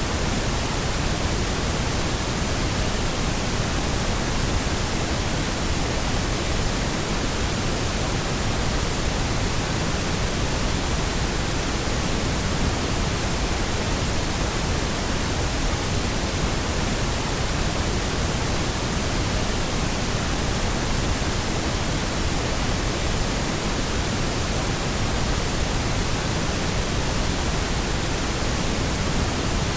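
Steady synthetic pink noise: an even, unbroken hiss spread across the whole range, with no changes.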